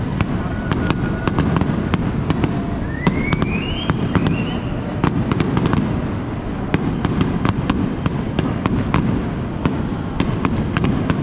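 Fireworks going off in quick succession: many sharp cracks and pops over a steady low rumble of bursts, with a rising whistle about three seconds in.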